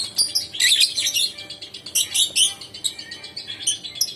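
Lovebirds chirping: a rapid run of short, shrill calls, many overlapping one another.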